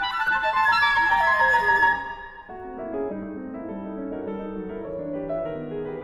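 Flute, clarinet and piano playing loud, high, accented figures, ending about two seconds in with a falling clarinet run. Then the piano continues alone, softer, with pedalled rippling figures in the middle register.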